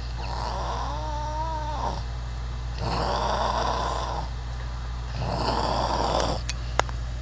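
A person snoring loudly: three snores about two and a half seconds apart, the first with a wavering pitched tone in it. Two sharp clicks come near the end, over a steady low hum.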